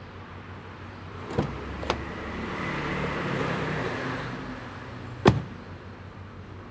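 Car rear door unlatched with two clicks, a swell of outside noise while it stands open, then the door shut with a single loud thud about five seconds in.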